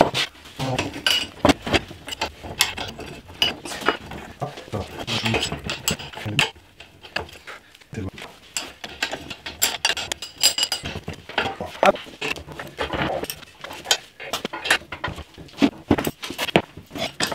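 Steel wrenches and sockets clinking and clattering against the metal frame and parts of a John Deere reel mower cutting unit as it is unbolted and taken apart: a string of irregular metallic clinks and knocks.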